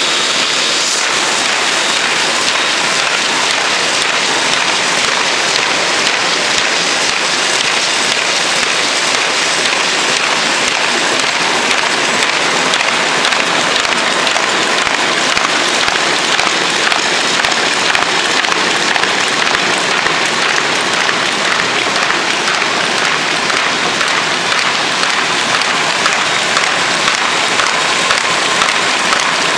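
MBO B-123 buckle paper folder running with paper feeding through it: a loud, steady, dense rattle of rollers and sheets that does not let up.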